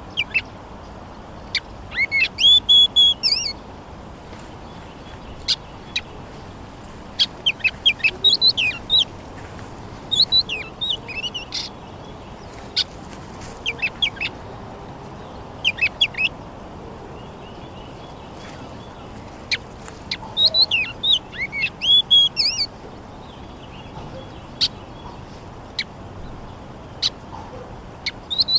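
A songbird singing in short warbled phrases that come every few seconds, with sharp single clicks between phrases over a steady low hiss.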